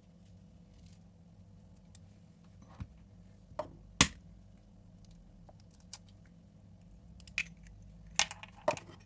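Scattered sharp clicks and knocks of kitchen utensils being handled during food preparation, about seven in all, the loudest about four seconds in and several close together near the end, over a low steady hum.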